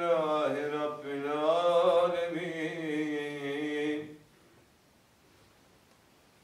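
A male voice chanting in the Mevlevi Sema ceremony, its line bending in pitch over a steady low held note; it stops about four seconds in.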